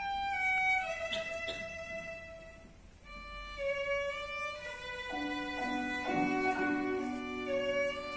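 Violin playing a slow melody that steps downward note by note and fades almost away about three seconds in, then comes back with lower held notes joining from about five seconds in.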